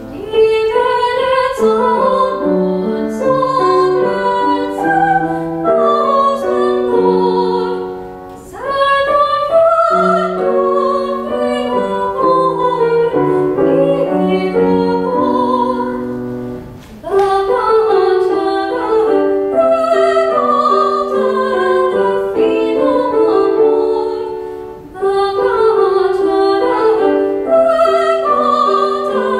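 Classical female singer in operatic style with Steinway grand piano accompaniment, her sustained notes carrying vibrato. The song moves in phrases, with short breaks about every eight seconds.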